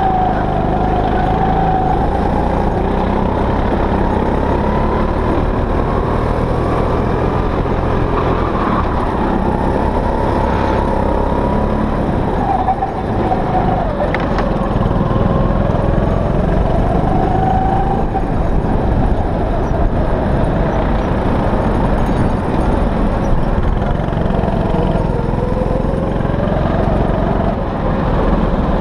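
Go-kart engine running hard, heard from the kart itself, its pitch rising and falling as the driver accelerates out of corners and lifts off for the next.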